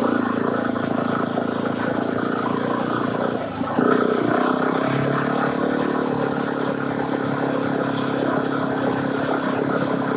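Suzuki DR-Z400 single-cylinder four-stroke dirt bike engine running while riding. The engine note dips briefly about three and a half seconds in, then picks up again and holds steady.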